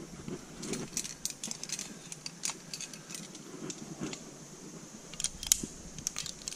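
Metal carabiners and quickdraws on a climbing harness jingling and clinking irregularly as the climber moves on the rock, with a sharper clink about five and a half seconds in.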